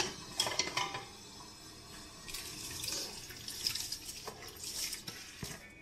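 Washed broken rice being poured and scraped from a plastic colander into a pot of boiling water: a few knocks in the first second, then a splashing, hissing pour from about two seconds in.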